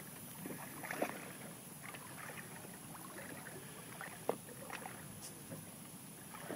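Quiet ambience aboard a small boat on the ocean: faint water lapping with a few light knocks, the clearest about a second in and again just past four seconds.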